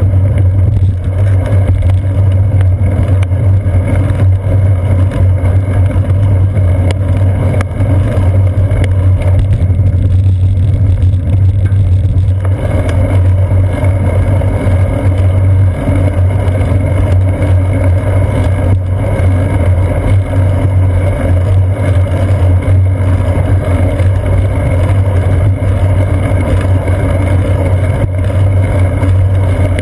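Steady, loud low rumble of wind buffeting and road vibration picked up by a seat-post-mounted GoPro Hero 2 on a moving bicycle. The hiss above the rumble gets a little brighter about twelve seconds in.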